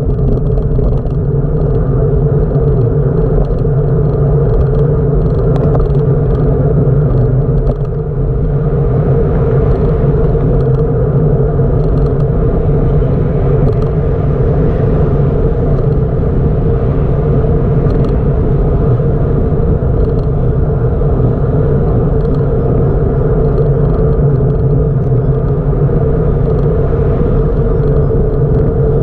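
Steady, loud rumble of a bicycle in motion picked up by a camera riding along with it: tyre and ride noise on the microphone, with a brief dip about eight seconds in.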